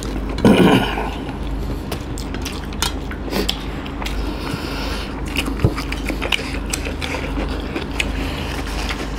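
Close-miked eating sounds: chewing and crunching raw cucumber, with scattered sharp clicks from hands and dishes on steel plates. Gravy is poured from a bowl onto rice about four seconds in, over a steady low hum.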